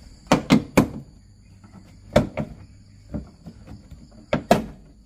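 Plastic retaining clips of a Honda City's rear bumper cover snapping loose as the bumper is pulled away from the body at its side: three quick snaps at the start, one about two seconds in, and two close together near the end.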